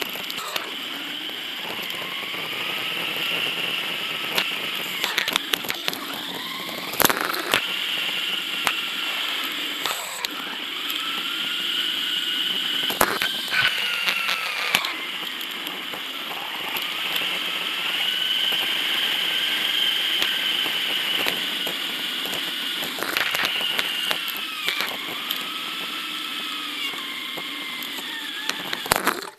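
Sped-up riding noise from a Radon mountain bike on city streets, played at eight times speed: a high hum of knobby tyres and drivetrain that rises and falls in pitch with the bike's speed, with scattered sharp clicks and knocks from bumps.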